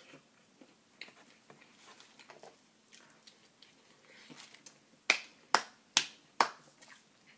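Four sharp light hand claps about half a second apart, around five seconds in, as hands are patted together to dust off crumbs. Before them, faint mouth and eating sounds from biting into a chicken sandwich.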